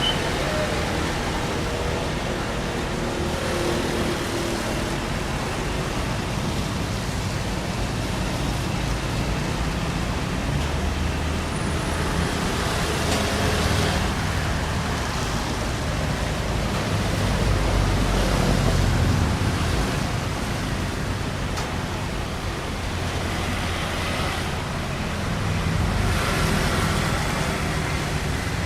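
City street traffic: a continuous wash of vehicle engines and tyre noise, swelling and easing as vehicles pass. A deeper, louder pass comes about two-thirds of the way through.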